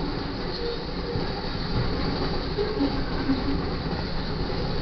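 Double-stack container cars of a BNSF intermodal freight train rolling past at speed: a steady rumble and rattle of steel wheels on rail.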